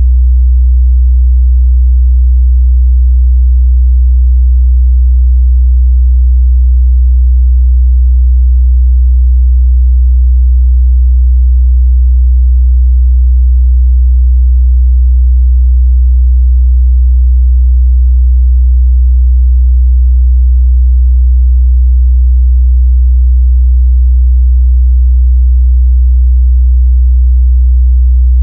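Steady 62 Hz sine-wave test tone: a constant, loud, low bass hum with no change in pitch or level, used to check a speaker's or headphone's mid-bass response.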